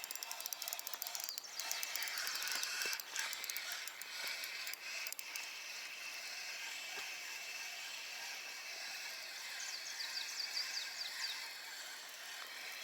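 Spinning reel being cranked to bring in a hooked fish, its gears and drag giving a fine, rapid ticking that is plainest in the first couple of seconds.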